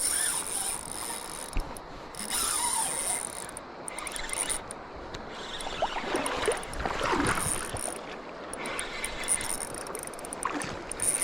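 Fishing reel being cranked, its gears and drag clicking and whirring in irregular spells, while a hooked chinook salmon is played.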